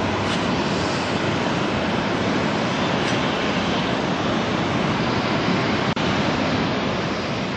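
Beechcraft 1900D twin-turboprop climbing out just after takeoff: a steady, loud roar of its engines and propellers at takeoff power, with a momentary dropout about six seconds in.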